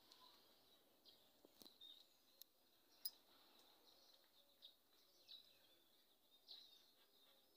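Faint, scattered chirps of small birds, with a few sharp clicks, the loudest about three seconds in.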